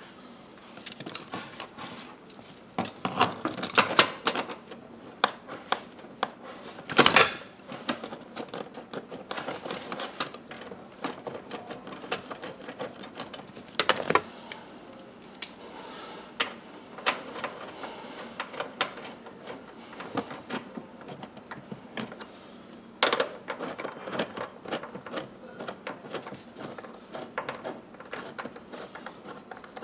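Irregular clicks, taps and rattles of parts and hand tools being handled during interior reassembly, with a few sharper knocks scattered through.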